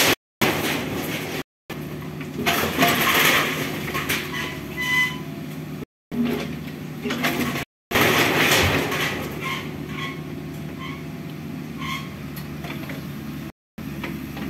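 Mini excavator's engine running steadily while its bucket and arm drag down corrugated metal roofing and wall debris, with clattering, scraping sheet metal and a few short squeaks. The sound cuts out for a moment several times.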